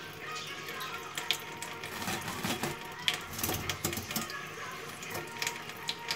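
Kitchen tap running in a thin stream onto a stainless-steel sink drainboard while a green Congo parrot bathes under it, with irregular splashes and drips pattering on the steel as the bird shakes and flaps its wet feathers.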